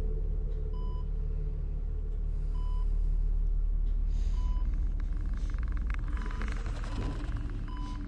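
Hospital patient monitor beeping steadily, one short beep about every second and three-quarters, over a low ominous rumble. About five seconds in, a crackling, buzzing noise swells up and fades near the end.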